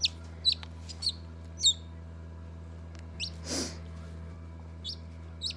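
Chick peeping: short, high peeps that fall in pitch, several in the first two seconds, the loudest about one and a half seconds in, and two more near the end. A brief rustle about three and a half seconds in, over a steady low hum.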